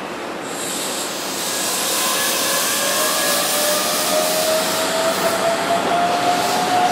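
Keihan 9000-series electric train (set 9004) pulling away from a station platform. The VVVF inverter motor whine rises slowly in pitch as the train gathers speed, over a growing wheel-and-car rumble.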